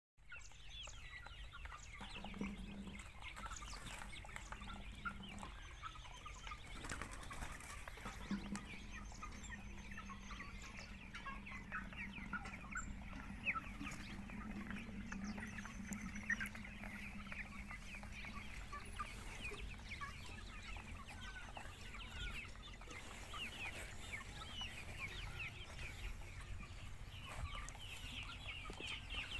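A flock of free-range chickens clucking continuously as they feed, many short overlapping calls, with a faint steady low hum through the first half.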